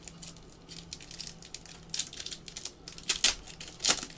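Foil wrapper of a trading-card pack being torn open and crinkled by hand: a run of crackling rustles, the two loudest about three seconds in and a little under a second later.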